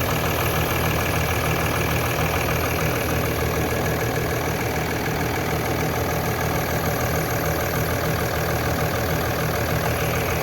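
Mercedes-Benz OM642 V6 turbodiesel idling steadily with a knock in its running, which the owner cannot place.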